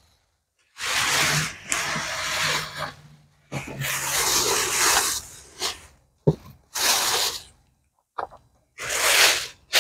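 Thin plastic packing bag rustling and crinkling in several loud bursts as a boxed generator is pulled out and handled, with a sharp knock about six seconds in.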